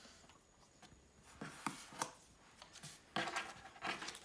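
Small paper cards being picked up, shuffled together in the hands and tapped on a wooden tabletop: faint rustling and a scatter of light taps, with a louder cluster of taps in the second half.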